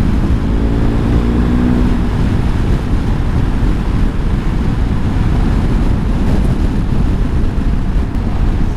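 BMW R1250 GS boxer-twin engine running through an SC Project aftermarket exhaust at around 90–100 km/h. It pulls up through the first few seconds, then eases off, under steady wind rush on the microphone.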